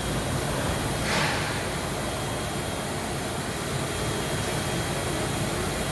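Packaging machinery running with a steady hiss and hum and a faint high whine, with a short burst of air hiss about a second in.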